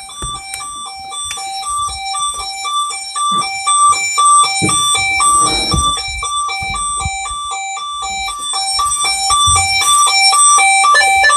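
Burglar alarm sounder going off with an electronic two-tone warble, switching rapidly back and forth between a higher and a lower pitch. It is set off during the alarm test. A few low knocks come in around the middle.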